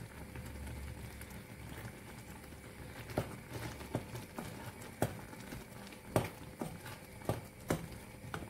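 Wooden spoon stirring chopped apples and walnuts in a small stainless steel saucepan of sugar syrup, knocking against the pan in irregular taps from about three seconds in, over a low steady hum.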